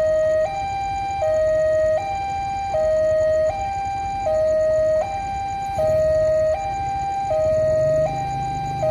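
Electronic two-tone warning alarm of an Indonesian railway level crossing sounding while the crossing is closed. It alternates steadily between a lower and a higher tone, each held for under a second, and the lower tone is louder. A low rumble joins about six seconds in.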